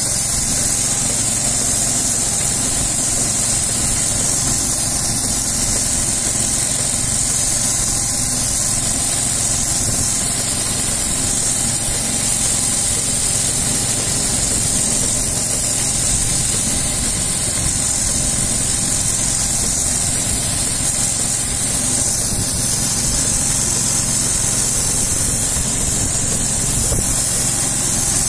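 Walk-behind road-line marking machine running steadily: its small engine hums while a strong, even hiss comes from its two spray guns laying paint in a double line.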